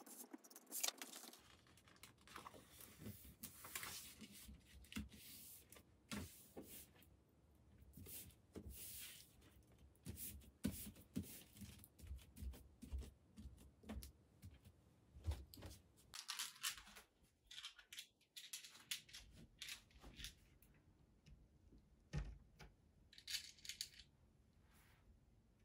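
Faint rustling and scattered light taps of a cardboard box and paper being handled on a shelf.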